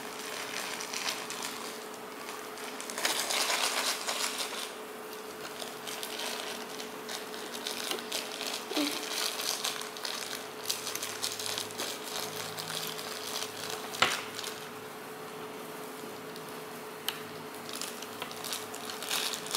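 Small plastic clicks, taps and rustles as a rubber-band loom and its hook tool are handled and bands are stretched over the pegs. There is a louder rustling stretch about three seconds in and a single sharp click later on, all over a steady hum.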